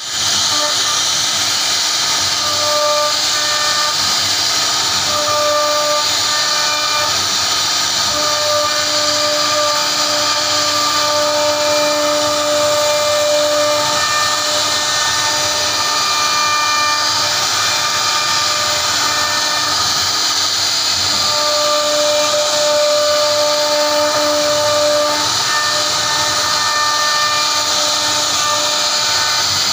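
CNC router spindle carving a relief pattern into a wooden panel: a steady high hiss from the spindle and cutter, with a whistling tone that comes and goes as the bit works through the wood.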